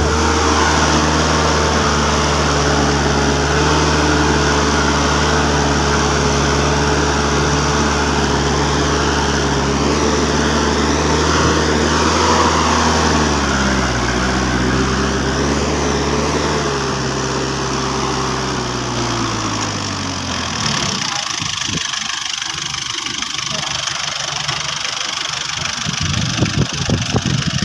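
Engine of a homemade farm truck running at a steady speed. Its pitch sinks slowly past the middle and drops away about three-quarters of the way through. After that comes a rougher, uneven noise with irregular knocks, louder near the end.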